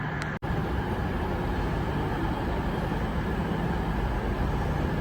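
Steady rumble and hum of a busy train station between announcements. About half a second in there is an abrupt dropout where the recording is cut and joined.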